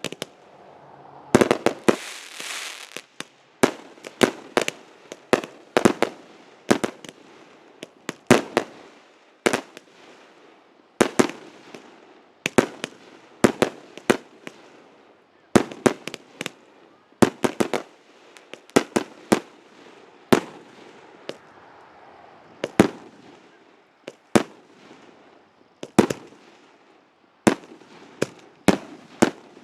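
Consumer fireworks going off: a long run of sharp bangs, roughly one a second, each with a short echoing tail, and a couple of stretches of crackling hiss.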